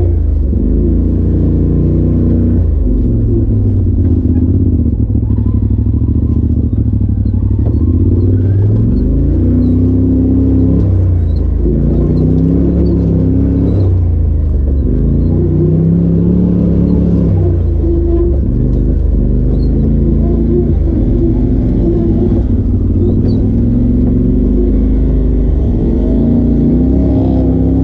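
Polaris RZR Turbo side-by-side engine heard from inside the open cab, driven slowly over rough trail. The engine note keeps rising and falling every couple of seconds as the throttle is applied and eased off.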